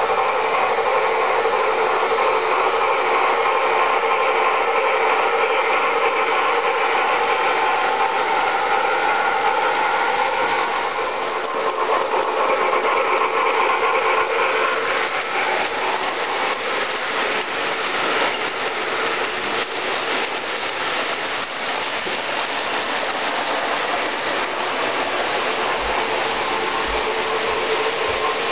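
MTH Premier O scale Norfolk & Western Class A 2-6-6-4 steam locomotive model running with its train of hoppers on three-rail tubular track: a loud, steady mechanical running noise of motor, gearing and wheels on the rails, with a steady whine.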